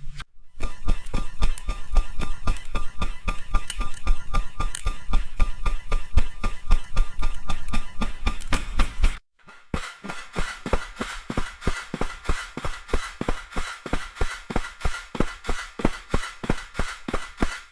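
Rapid, evenly spaced tapping or knocking, several strokes a second, that cuts off suddenly about nine seconds in and resumes after a brief gap, lighter and a little slower in the second stretch.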